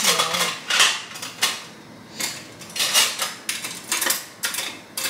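Metal kitchen utensils clinking and clattering against each other at irregular intervals as someone rummages through a utensil holder looking for tongs.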